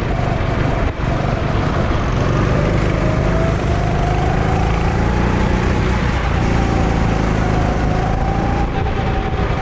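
A CRG rental go-kart engine running on track. Its pitch dips and then rises again between about three and five seconds in.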